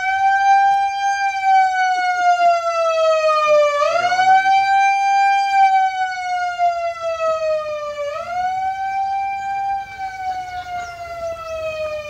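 Electronic alarm siren sounding for an earthquake evacuation drill: a loud wail that jumps up in pitch about every four seconds, then slowly sinks before the next rise.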